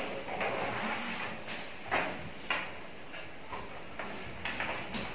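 Flexible plastic electrical conduit and wires being pulled and fed along a ceiling by hand: a scraping, rustling handling noise with several sharp knocks and clicks, two of them about two seconds in and a few more near the end.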